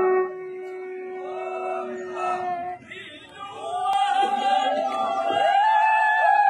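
A palliyodam snake-boat crew chanting and shouting together in chorus. A steady blown tone cuts off just after the start, and a long held note runs under the voices from about halfway.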